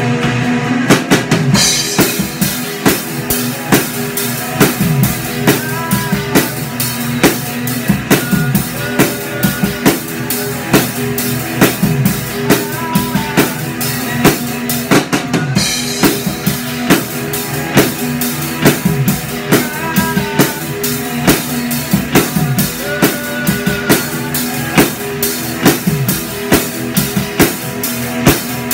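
Live rock jam: a drum kit played in a steady, busy beat with bass drum, snare and cymbals, over sustained amplified chords. The cymbals come in about two seconds in and drop out briefly about halfway.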